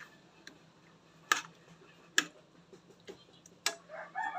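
A metal spoon clicking against a pan as chicken pieces are stirred: a few sharp clicks, two of them loud. Near the end a rooster starts calling in the background.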